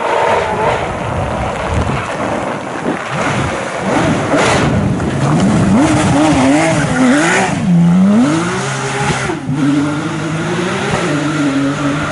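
Racing car engine at speed, revving up and down, its pitch rising and falling several times as it goes through the gears.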